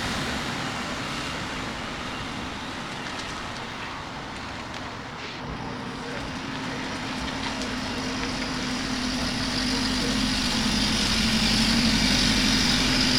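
Subaru Forester running as it is driven in at low speed, a steady engine hum that grows louder over the second half.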